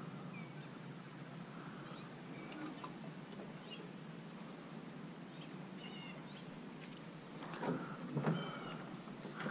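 Small birds chirping now and then over a steady low hum, with a few sharp knocks and rattles about eight seconds in.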